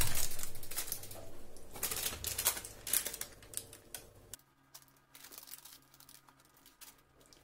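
Parchment paper rustling and crinkling as it is lifted and handled around a pie in a frying pan, with irregular small crackles. It is busy for about four seconds, then drops to a few faint crinkles.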